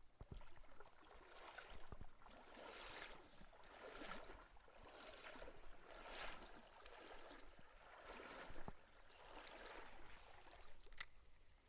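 Faint splashing and swishing of mountain-stream water, swelling and easing about once a second, with a couple of soft knocks near the start.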